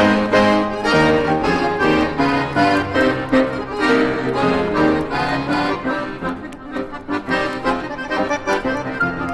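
Instrumental electronic-keyboard music: a reedy, accordion-like melody held note to note over a steady beat.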